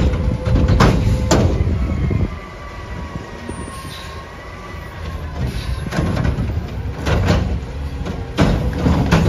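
Front-loading garbage truck's automated cart arm at work on yard-waste carts: the diesel engine and hydraulics run under repeated metal clanks and bangs. The sound drops off for a few seconds in the middle, with a faint wavering whine. Heavy clanks come again near the end as the arm lifts a cart.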